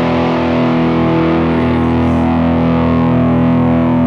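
Les Paul Custom electric guitar through an amp: one chord struck just before and left to ring, held steady and sustaining.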